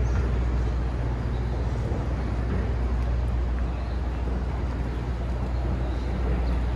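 Busy city street ambience: a steady low rumble of traffic.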